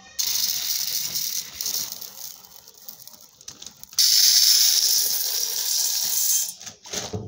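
Dry basmati rice grains poured into stainless steel vessels, a rushing, hissing rattle. It comes in two pours, the second, from about four seconds in, the louder.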